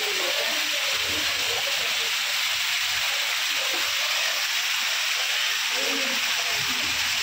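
Steady rain falling, a constant hiss of heavy rainfall.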